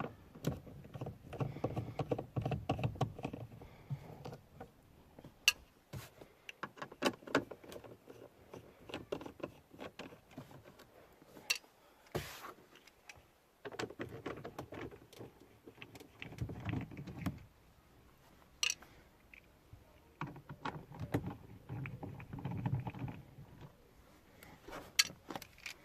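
Handling noise from work on a car's plastic door trim and its screws: scattered clicks, light rattles and rubbing, with a short hiss about halfway through.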